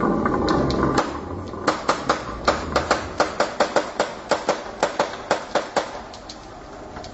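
Glass marbles rolling down a carved wooden zigzag track with a dense rumble, then dropping off its end onto a wooden floor one after another: a rapid run of sharp clacks, about four a second, that thins out near the end.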